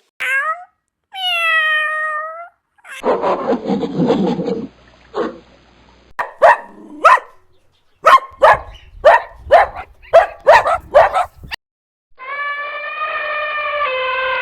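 A dog vocalising in a string of short clips: brief whines, a rough growl, a quick run of sharp barks, then a long drawn-out howl near the end.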